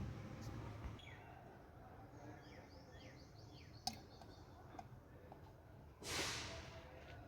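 Birds chirping in quick short falling calls for a few seconds, with a couple of light clicks. About six seconds in, a short loud hiss lasts under a second.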